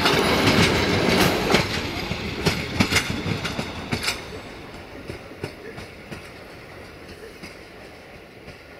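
Passenger coaches rolling away over the rail joints: a clickety-clack of wheels that thins out after about four seconds, with the rumble fading steadily as the train recedes.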